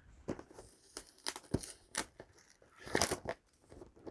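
Yu-Gi-Oh trading-card packaging crackling and tearing under the hands as a booster display box is opened, in scattered short crackles with a louder rustle about three seconds in.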